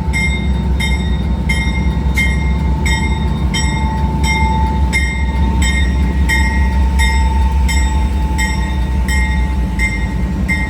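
Amtrak passenger train pulling out behind P42DC diesel-electric locomotives: a steady low rumble of the engines and rolling cars, with a faint steady whine above it. A bell dings evenly about twice a second throughout.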